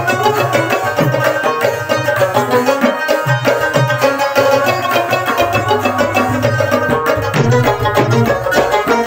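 Live Pashto instrumental music: rabab and Pashto sitar playing a plucked melody together over a steady tabla rhythm, the tabla's low drum notes bending in pitch.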